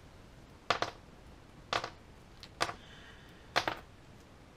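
Small metal clips snapping open one at a time as they are taken off a mesh stencil clamped around a crankbait: four sharp clicks about a second apart.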